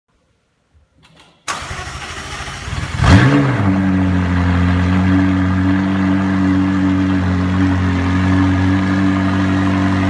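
McLaren 675LT Spider's 3.8-litre twin-turbo V8 being started: a few faint clicks, then starter cranking from about a second and a half in, the engine catching with a loud, brief rev flare at about three seconds, then settling into a steady idle.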